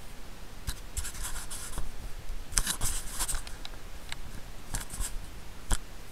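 Several short bursts of scraping and rubbing against a bike-mounted camera, with a few sharp knocks, the sharpest near the end, over a steady hiss.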